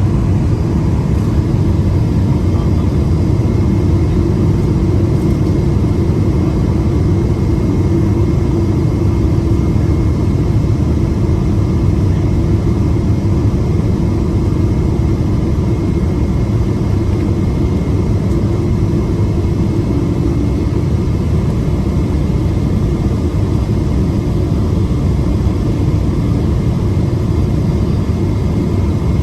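Steady cabin noise inside a Boeing 777-200ER in flight: a low, even rumble of the jet engines and rushing air, with a faint steady whine above it.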